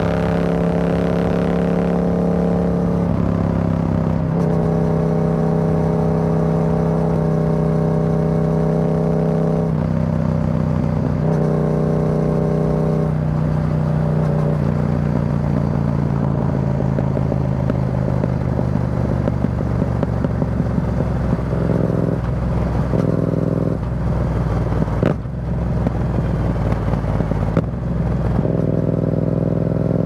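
Yamaha XSR700's 689 cc parallel-twin running through an Akrapovic carbon full exhaust with the dB killer removed, cruising at highway speed. The exhaust note holds steady and sags slowly, then wavers, dips briefly about three-quarters through and climbs again near the end.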